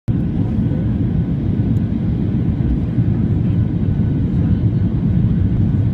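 Inside the cabin of a Boeing 737-800 descending on approach: the steady low roar of its CFM56-7B engines and the air rushing past.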